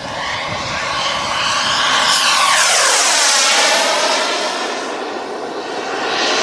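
Turbine of a CARF-Models Viper Jet RC model jet (an 18 kg-thrust King Tech turbine) on a fly-by. The whine and rush build to a peak two to three seconds in, where the pitch drops as the jet passes. It then eases off and swells again near the end.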